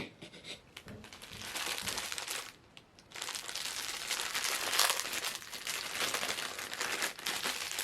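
Plastic packaging crinkling as a vinyl figure is taken out of a Funko Soda can and unwrapped: a short stretch of crinkling, a brief pause about three seconds in, then steady crinkling.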